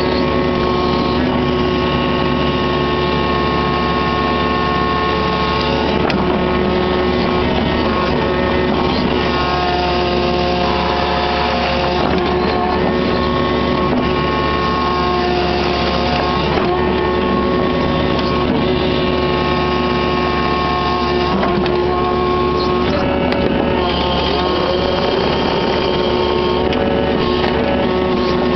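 Kubota KX61-3 mini excavator's three-cylinder diesel running steadily under load while the hydraulics work the boom and grading bucket. Several steady tones in the engine-and-hydraulic note shift up or down in pitch every few seconds as the controls are moved.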